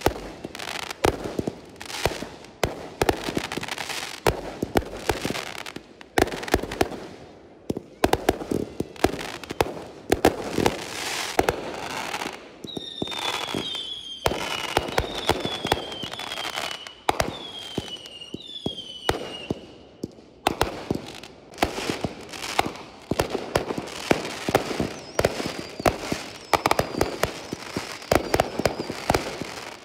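Fireworks display: a rapid, continuous string of bangs and crackles from aerial shells bursting. About halfway through comes a run of short whistles, each falling in pitch.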